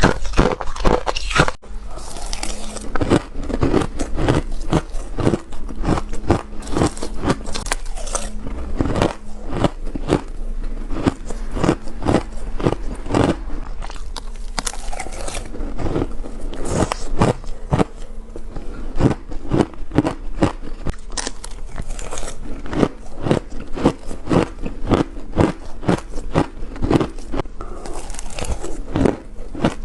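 Crushed ice being bitten and crunched between the teeth close to the microphone, a rapid continuous run of sharp crackling crunches.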